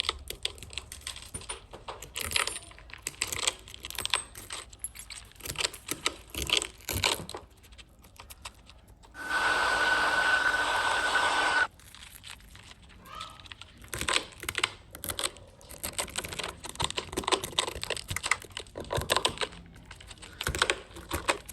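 Cracked iPhone back glass being crunched and picked apart: many small irregular clicks and crackles of breaking glass. In the middle a steady hissing noise with a thin high whine runs for about two and a half seconds and then cuts off.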